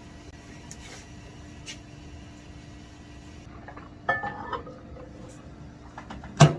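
A glass lab bottle of agarose solution set down inside a microwave oven, clinking with a brief ring about four seconds in. Near the end the microwave door is shut with a single sharp clunk. A steady background hum runs underneath.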